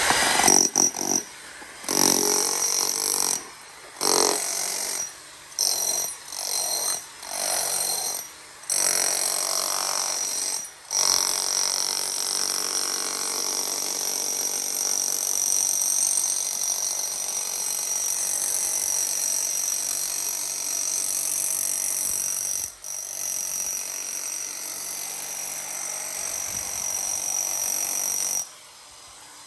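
Bosch handheld jackhammer hammering plaster off a pool surface. It starts and stops in short bursts for about ten seconds, then runs steadily until it stops near the end.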